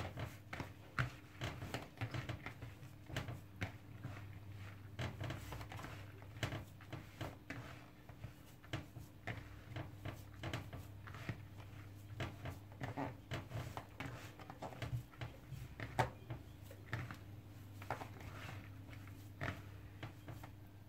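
Hands kneading and squeezing moist fine bulgur mixed with pepper and tomato paste in a plastic bowl: irregular soft squishing and crackling, over a steady low hum.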